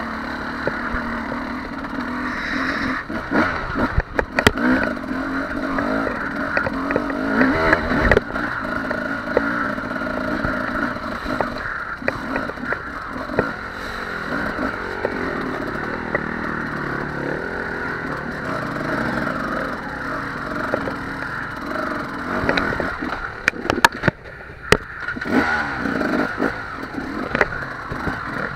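Two-stroke Husqvarna 300 TE enduro motorcycle engine revving up and down under load while climbing over rocks, with sharp knocks and clatter from the bike striking stones, the clatter thickest near the end.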